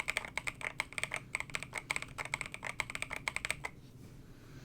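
Fast typing on a RAMA KARA mechanical keyboard fitted with stock, unlubed Nebula switches, a polycarbonate plate and KAT blank keycaps: a quick, even run of keystroke clacks that stops a little over halfway through.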